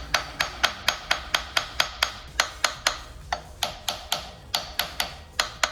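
Hammer blows on a stuck part of a 1951 Case SC tractor, about four quick strikes a second in short runs, knocking at it to free it.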